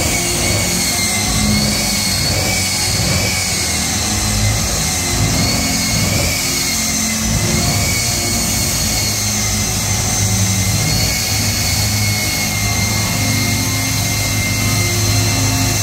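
Jet engine of a jet-powered semi truck running steadily while the truck sits on the drag-strip starting line: a loud high turbine whine that wavers slightly in pitch, over a steady low rumble.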